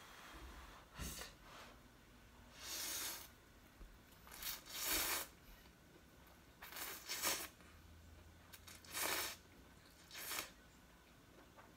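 Instant ramen noodles being slurped: a run of short, hissy slurps, about eight in all, with chewing in the pauses between.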